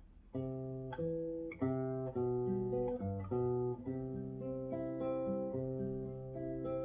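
Acoustic guitar playing a slow chord progression, starting about a third of a second in.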